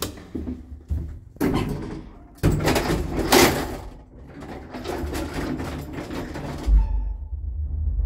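Lift car's automatic sliding doors closing after a floor button is pressed, rattling as they run. Near the end there is a low thud, then a steady low hum as the lift's drive starts and the car begins to move.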